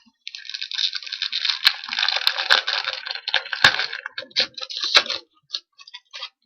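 Trading card pack wrapper crinkling and tearing as it is opened, with three sharp cracks, then a few light ticks as the cards are handled near the end.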